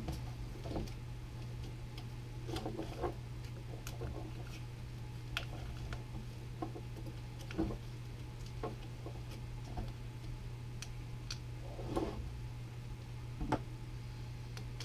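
Scattered light clicks and taps of a snowshoe binding's aluminum crampon and metal hardware being handled and fitted, about one every second or two, over a steady low hum.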